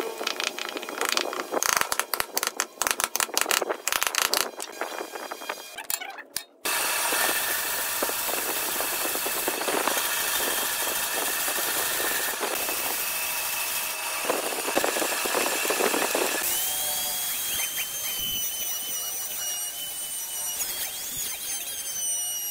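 A chisel working into a wooden block, a rapid run of sharp knocks and scrapes; then a bandsaw cutting through a wood block, a steady cutting noise that swells a couple of times; then, after about two-thirds, a compact electric trim router running and cutting a pocket in a small wooden box, a steady high whine.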